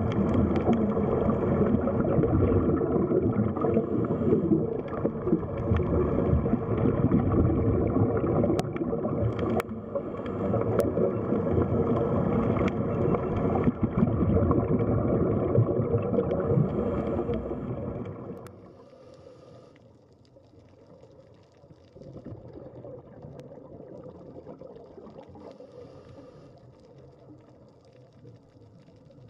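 Steady underwater rumble with a faint hum running through it, like a boat motor heard underwater. About 18 seconds in it drops suddenly to a faint hiss.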